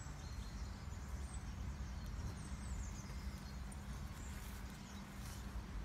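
Outdoor ambience: a steady low rumble with a few faint, brief high bird chirps.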